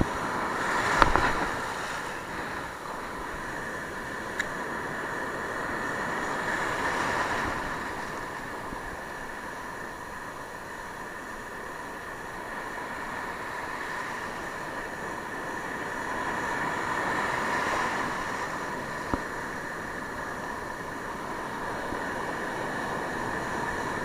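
Sea surf breaking on a rocky shore, a steady hiss of waves that swells and eases twice, with a few small knocks.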